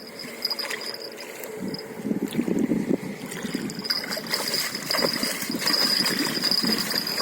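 Water splashing and gurgling at a river's edge, uneven and louder from about four seconds in, with a steady high-pitched tone that comes and goes above it.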